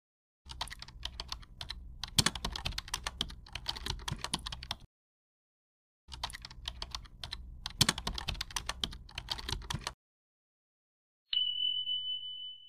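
Keyboard-typing sound effect: two runs of rapid key clicks, each about four seconds long, with a pause between. About eleven seconds in, a single high chime rings and fades as the correct answer is ticked.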